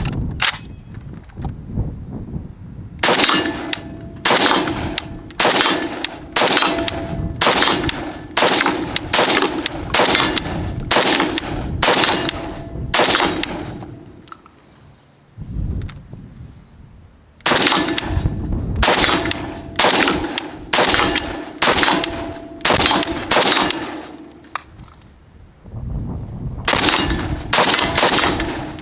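WBP Jack 556SR, an AK-pattern rifle in 5.56×45mm, fired semi-automatically in steady strings of shots about one every two-thirds of a second, with two pauses of a few seconds between strings.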